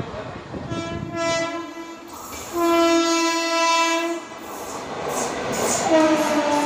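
Express locomotive's horn sounding as an Indian Railways train of ICF coaches runs through at speed. Two long blasts, the second louder, then a third about six seconds in that drops in pitch as the locomotive passes. The rumble and clatter of the passing train rise underneath.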